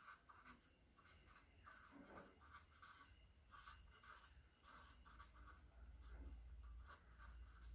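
Felt-tip marker writing on paper: faint, short scratching strokes one after another as letters are written out by hand.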